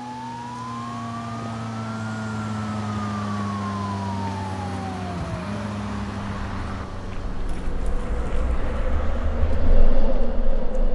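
A steady low mechanical hum with a whining tone that glides up and then back down over about five seconds, followed by a rushing, wind-like noise that swells and grows louder toward the end.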